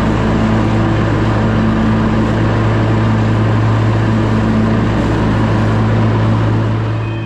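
Zero-turn riding mower's engine running steadily at speed as the mower drives, a constant low hum with broad mechanical noise over it.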